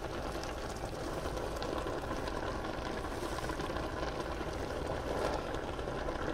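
A pot of eru simmering on the stove: a steady low bubbling hiss with faint tiny crackles.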